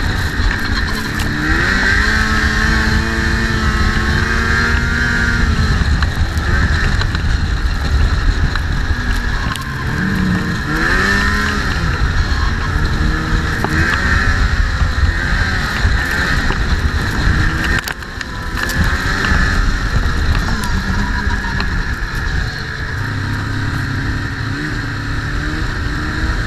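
Snowmobile engine running under load, its pitch rising and falling again and again as the throttle is worked, over a steady low rumble.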